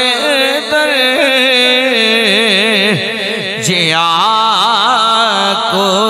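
A solo voice singing a Punjabi naat, drawing a word out into long held notes with a wide, even vibrato. About halfway through, the melody slides down into a lower held note.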